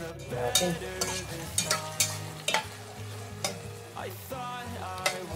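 Chopped tomatoes, onion and chili cooking in a stainless steel pot while being stirred with a spoon, which knocks against the pot several times; music plays underneath.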